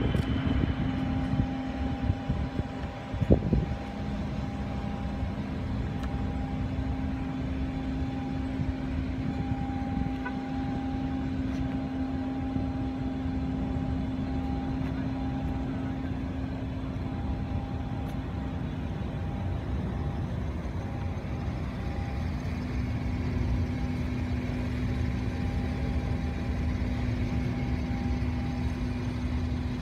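Rolls-Royce Wraith's twin-turbo V12 idling steadily: a low hum with a fainter, higher steady whine over it. A few brief knocks come near the start.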